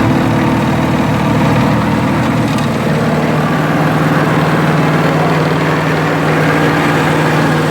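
Cucumber seed separator machine running steadily, a continuous mechanical hum; a steady low tone in it grows stronger about three seconds in.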